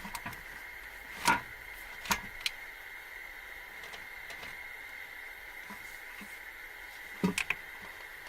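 A few short, scattered knocks and clicks from hand work on the engine: one about a second in, two more around two seconds in, and a quick run of three near the end, over a faint steady high-pitched hum.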